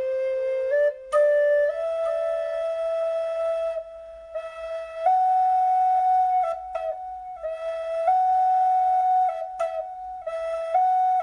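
Solo flute playing a slow melody of long held notes that step up and down, with a few short breaks between phrases.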